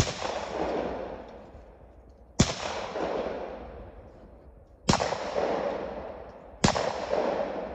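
Four shotgun shots at clay targets, the first two about two and a half seconds apart and the last two under two seconds apart. Each sharp report trails off in a long rolling echo over about two seconds.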